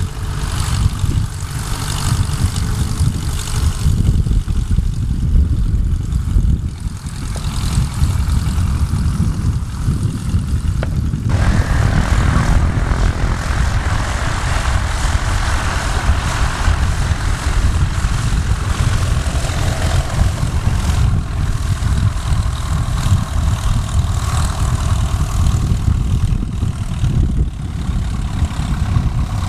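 Light single-engine propeller aircraft running on the runway, a continuous engine and propeller drone with a deep rumble under it. The sound changes abruptly about eleven seconds in.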